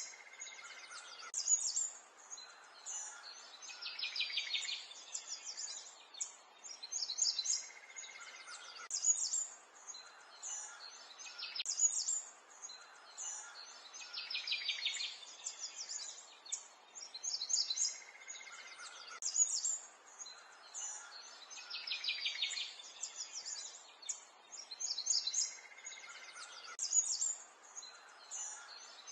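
Birds chirping and singing: many short high chirps, with a fast trill recurring every several seconds.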